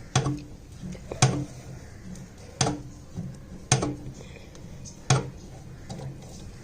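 Sharp metallic clinks and knocks, five of them spaced roughly a second apart, each ringing briefly, over a faint steady low hum.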